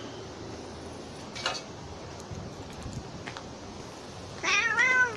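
Kitten's short, loud cry, rising then falling in pitch, near the end, uttered while two kittens scuffle, a spat among the kittens. A brief short noise comes earlier, about a second and a half in.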